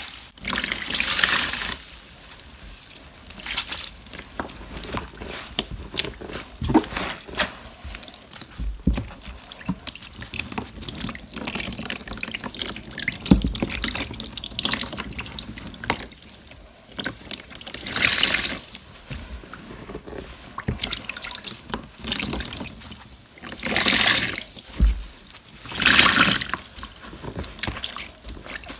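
Water splashing and pouring in irregular bursts about a second long, with small drips and trickles between them.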